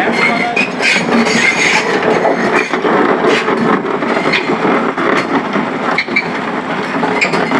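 Excavator at work: its diesel engine running steadily under load, with frequent irregular metallic clanks and knocks from the machine.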